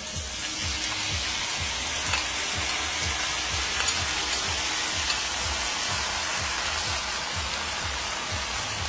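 Shrimp sizzling in a hot enamelled cast-iron pan, a steady hiss that swells within the first second as they go in.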